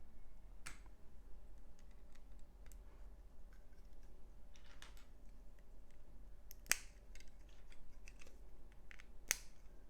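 Plastic LEGO bricks being handled and pressed together: faint scattered clicks and taps, the two sharpest a little past halfway and near the end.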